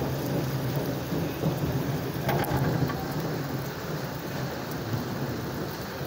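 Heavy rain pouring steadily onto a wet paved road, with a low rumble of thunder underneath and a single sharp tap about two seconds in.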